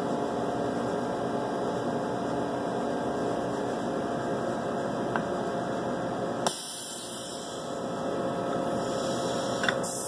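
Steady electrical mains hum with a stack of even tones. A sharp click comes about two-thirds through, after which the hum is quieter for a second or two before returning.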